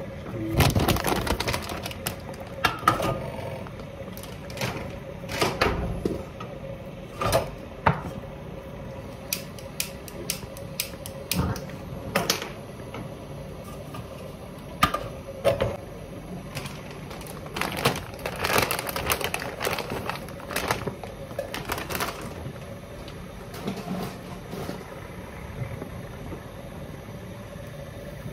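Irregular knocks and clatter from kitchen work: a pan and bell peppers being handled and set down on the counter, some knocks in quick clusters, over a faint steady hum.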